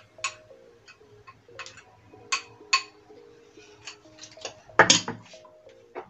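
A spoon clinking and scraping against a glass bowl as sauce is scraped into it: about a dozen sharp, lightly ringing clicks at irregular intervals, with a louder, longer clatter about five seconds in.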